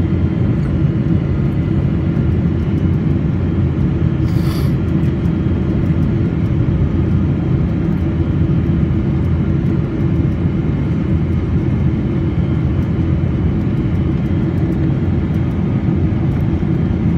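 Steady low rumble of an airliner's cabin noise, with a brief hiss about four and a half seconds in.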